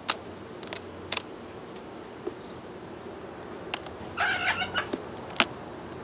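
Beehive equipment being handled: a series of sharp clicks and knocks of hive parts, with a brief squeak about four seconds in.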